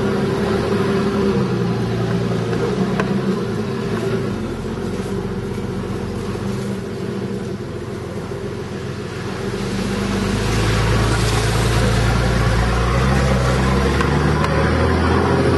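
Four-wheel-drive vehicle's engine running at low speed through a shallow creek crossing, heard from inside the cab. About ten seconds in it grows louder and deeper as the vehicle pulls up the far bank under load.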